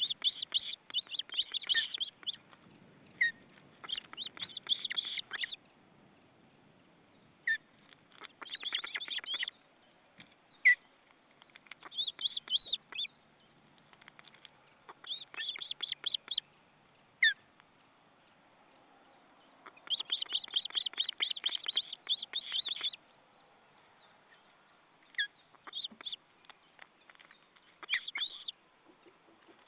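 Ospreys at the nest calling in repeated bouts of rapid, high chirps, each bout lasting one to three seconds and coming every few seconds. Short single whistles fall between the bouts.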